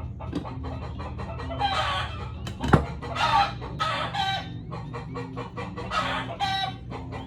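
Chickens clucking in a series of short, loud calls over a steady low hum, with a sharp click a little under three seconds in.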